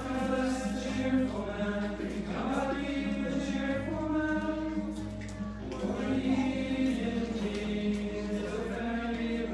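Male choir of young seminarians singing together in long held notes, accompanied by a strummed acoustic guitar.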